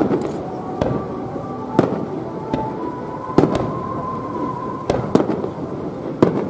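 Aerial firework shells bursting in a fireworks display: about eight sharp bangs at irregular intervals, over a continuous low rumble between them.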